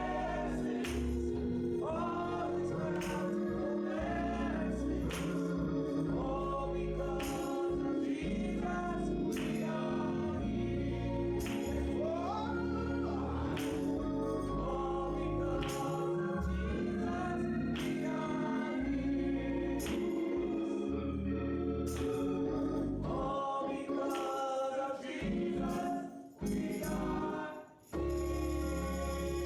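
Gospel choir singing over a band with a strong bass line and drums. The music drops away briefly near the end, then comes back.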